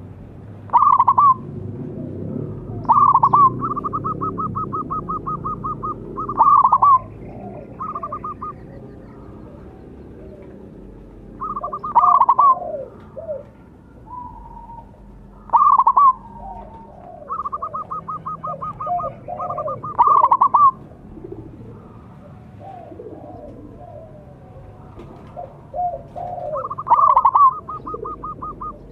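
Zebra dove (perkutut) song: about seven loud coos, several running on into a fast string of short repeated notes, with softer, lower notes in between.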